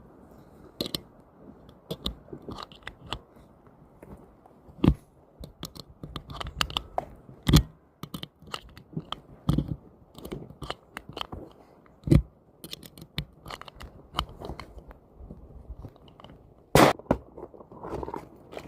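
Crunching footsteps and small clicks of spent brass cartridge cases being gathered on the range ground. Several sharp cracks are spread through, the loudest about halfway through and again near the end.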